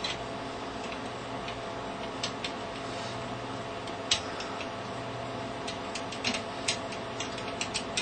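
Curtain-type mortice lever lock being picked with a Dangerfield pick: small, irregular metallic clicks and ticks as the pick works the levers, sparse at first, one louder click about halfway, then coming more often near the end, over a steady low hum.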